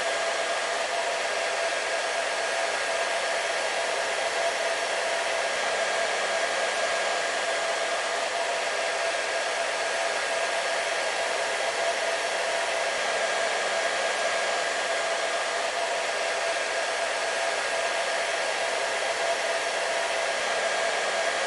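Hair dryer running steadily: an even rushing blow with a constant motor hum.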